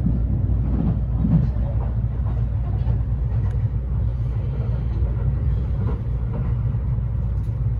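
Steady low rumble of a Kintetsu 80000 series Hinotori limited express running along the line, heard inside the passenger car.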